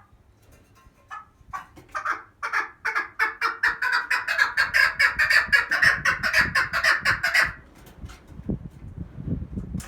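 Female chukar partridge calling, the hen call used to draw in males: short clucking notes that start sparse, speed up and grow louder into a rapid run, then break off suddenly. Faint low rumbling follows.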